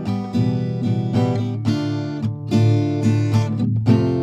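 Background music: a plucked acoustic guitar tune, several notes a second.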